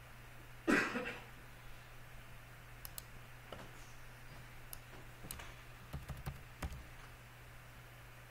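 Computer keyboard keystrokes and mouse clicks: scattered single clicks, bunching into a quick run of taps between about six and seven seconds in. A short, louder burst of noise about a second in, over a faint steady hum.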